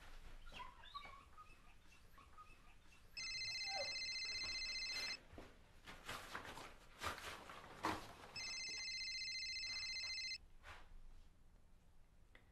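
A mobile phone's electronic ringtone ringing twice, each ring a steady, high, trilling tone about two seconds long, the second starting about three seconds after the first ends. Scattered clicks and knocks come between and around the rings.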